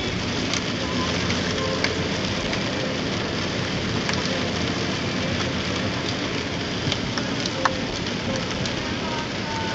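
Rain pelting the car's windshield and roof, heard from inside the cabin: a steady hiss with many sharp individual drop hits.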